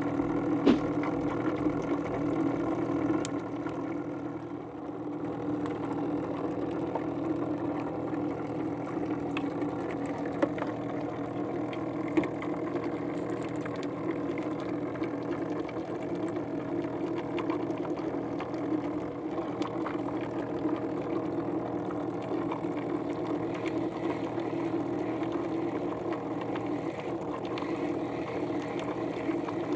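Small boat engine running steadily at an even speed, with a few faint clicks.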